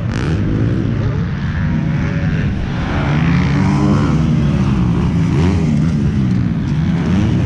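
Motocross bikes racing on the track, several engines droning together with their pitch rising and falling as the riders open and close the throttle.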